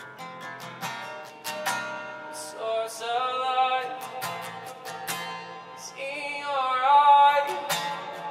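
Live worship music: an acoustic guitar strummed steadily, with a voice singing long wavering notes about three seconds in and again about six seconds in.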